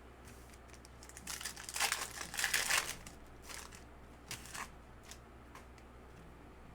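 Crinkling of a foil trading-card pack wrapper being handled, for about a second and a half, followed by a few light clicks and taps.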